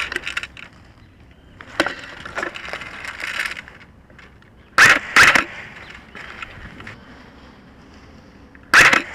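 Crackling and rustling of twigs and brush, as from movement through vegetation, broken twice by a pair of short, loud, sharp bursts about half a second apart.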